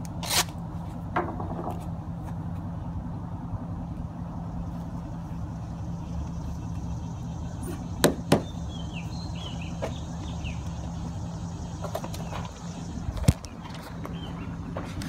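Steady low engine hum, like an idling vehicle, with a few sharp knocks: two close together about eight seconds in and a louder one near the end. A few short high chirps come in the middle.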